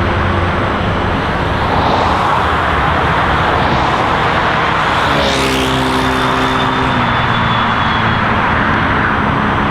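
Dense road traffic on a busy urban highway, with a steady rush of tyres and engines. About five seconds in, one vehicle passes close, with a sweep of tyre hiss and an engine note that drops in pitch as it goes by.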